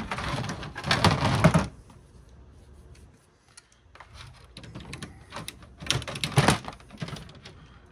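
Pliers gripping and wrenching small parts off the circuit board inside a plastic DVD player chassis, making scraping, creaking and clattering in two bursts: one in the first second and a half and one around six seconds in. Light clicks and knocks fall between them.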